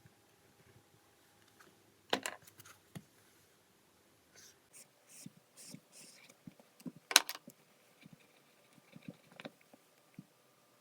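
Quiet handling sounds: a few sharp clicks and taps, the loudest about two seconds in and again about seven seconds in, with short soft rustles in between, as of small objects being moved and set down.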